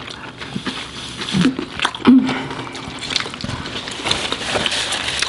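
Close-miked wet eating sounds: chewing and mouth smacking on seafood in butter sauce, with sauce squishing as fingers pick through the food, and a brief hummed "mm" about two seconds in.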